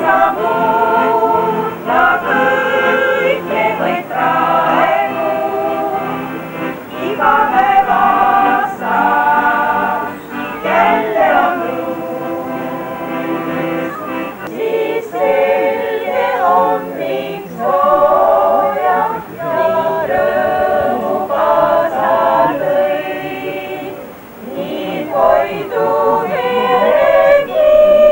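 A small group of women singing a song together in unison.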